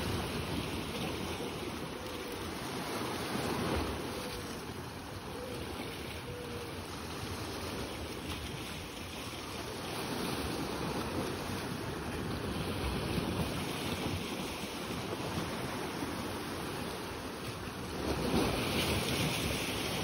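Small sea waves washing against rocks along a rocky shore, a continuous wash with a louder surge near the end, with some wind on the microphone.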